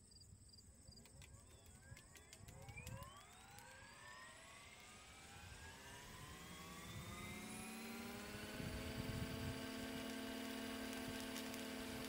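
Electric RC scale helicopter with an Egodrift 4035HT-470kV brushless motor spooling up: the motor and drivetrain whine rises steadily in pitch for several seconds, then levels off as the rotor reaches flying speed.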